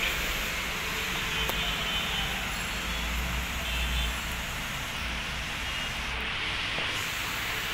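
Steady background noise: a hiss with a low rumble underneath.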